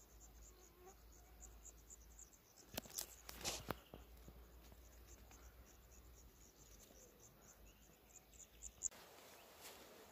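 Crickets chirping faintly in an even, repeating series, with a short cluster of clicks about three seconds in. The chirping stops abruptly about nine seconds in.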